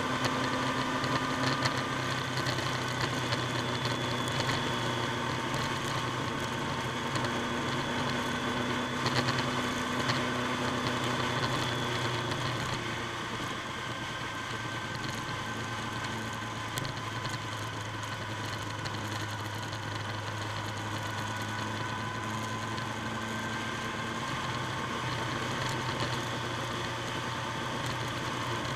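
Motorcycle engine running steadily while riding at cruising speed, heard from the bike itself over a steady rushing hiss. About halfway through, the engine note drops a little and gets slightly quieter.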